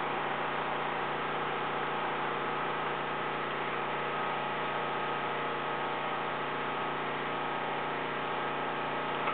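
Steady mechanical drone of air compressors running, made up of many steady tones at an even level.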